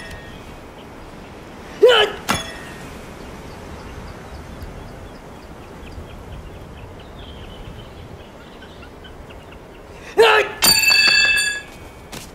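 A Shaolin monk gives short sharp shouts with his sword moves, once about two seconds in and again near the end. After the second shout a thin steel blade rings with a clear metallic tone for about a second.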